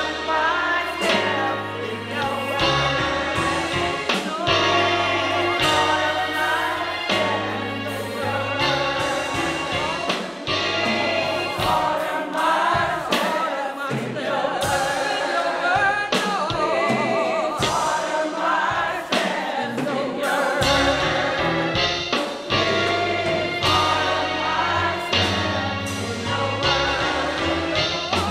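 Gospel choir of mostly women's voices singing with a low bass line and a beat beneath them.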